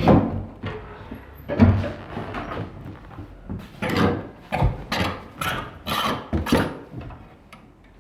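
A string of irregular knocks and clatters, about one or two a second, dying down in the last second or so.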